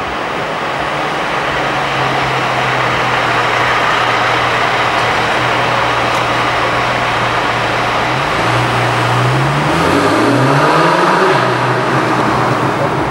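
Porsche 911 4S (997) flat-six with sport exhaust, heard from inside the car. It cruises at a steady note over road noise, then about eight seconds in accelerates with the pitch rising, dips at a gear change and rises again before levelling off.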